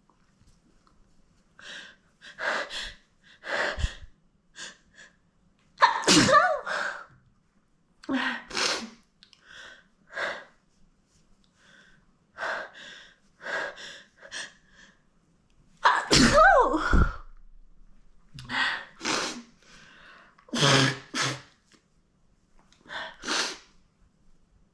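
A young woman's sneezing fit: a long run of sneezes, some soft and some loud. The two loudest come about a quarter and two-thirds of the way through, each with a cry that falls in pitch.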